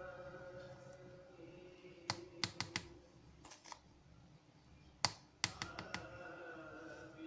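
A spoon tapping against the rim of a blender jug in two quick bursts of clicks, about two seconds in and again about five seconds in, as spoonfuls of gram flour are knocked off into the jug.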